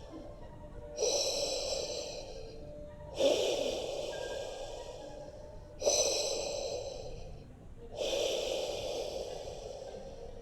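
Rhythmic breathing-like hiss linked to a K&P stainless steel micronic oil filter, likened to Darth Vader's breathing: four sharp whooshes, one every two to three seconds, each fading away before the next.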